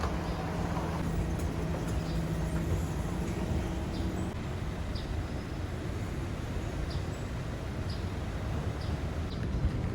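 Steady low outdoor rumble, with a faint hum in the first few seconds and faint short high chirps scattered through it about once a second.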